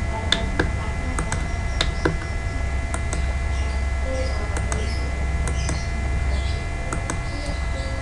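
Computer mouse and keyboard clicks, about ten irregular clicks, over a steady electrical hum.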